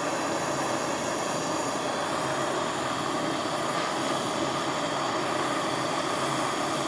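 Jeweller's gas soldering torch flame burning with a steady roar, heating a large silver buckle to soldering temperature.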